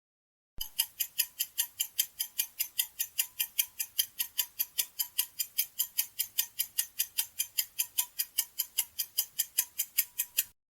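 Quiz countdown-timer sound effect: clock ticks, about five a second and evenly spaced, starting suddenly and stopping suddenly near the end.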